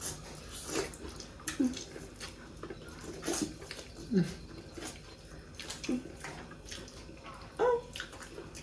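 Close-up eating sounds: wet chewing, smacking and slurping of noodles and corn, in scattered short bursts. The loudest slurp comes about four seconds in.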